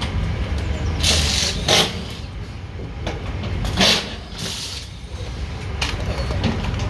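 Rally service-area workshop noise: a steady low hum with short hissing bursts, about six of them, a second or so apart.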